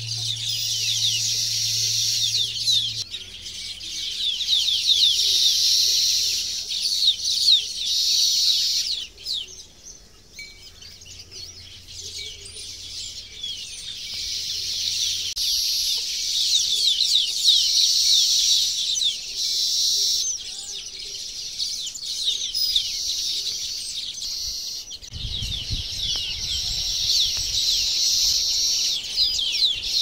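A flock of small birds chirping and twittering together, a dense chorus of quick high notes that thins out for a couple of seconds about ten seconds in. Some low rumbling comes in near the end.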